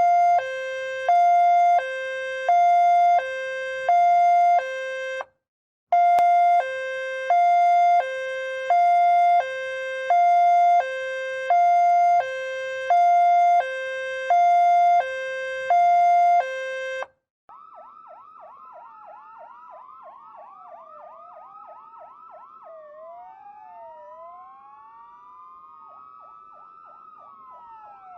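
Two-tone hi-lo ambulance siren switching between a lower and a higher pitch about once a second. It breaks off for half a second about five seconds in and stops at about seventeen seconds. Then a quieter electronic siren sweeps rapidly up and down with overlapping echoes, slowing to longer wails near the end.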